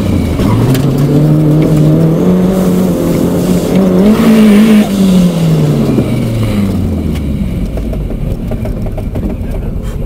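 Toyota MR2 Turbo's turbocharged four-cylinder engine heard from inside the cabin under hard acceleration. The revs climb steadily for about four seconds, peak near the middle, then drop away and settle to a low, steady note.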